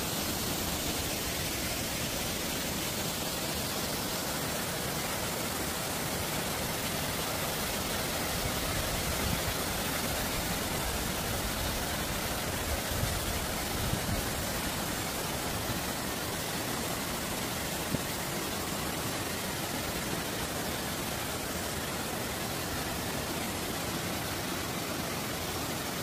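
Waterfall cascading over rock into a pool, a steady, even rush of water.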